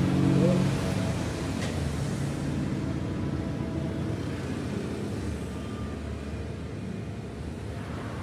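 Steady background traffic noise with a low engine hum running throughout, and a single sharp click about one and a half seconds in.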